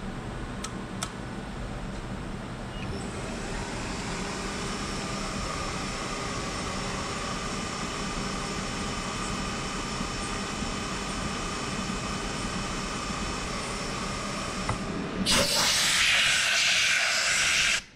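CNC milling machine running and cutting a metal block, a steady machine whine with several held tones that fills out about three seconds in. About fifteen seconds in, a loud blast of compressed air from an air gun hisses for two to three seconds, blowing the chips out of the vise, and cuts off suddenly.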